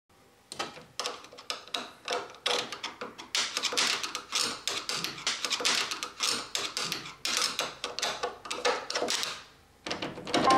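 Chrome doorknob and latch of an interior door being jiggled and rattled, a fast, irregular clatter of metal clicks, as at a door that won't open. Near the end a phone ringtone starts.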